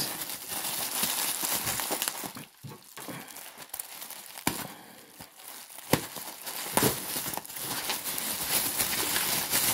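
Plastic bubble wrap crinkling and rustling as hands turn it over and a knife slits it open. It goes quieter for a couple of seconds in the middle, and a few sharp clicks come through.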